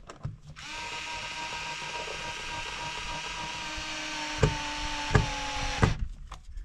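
Cordless screwdriver driving a screw into a plastic electrical box. The motor runs steadily for about five seconds, with two sharp knocks near the end, then stops.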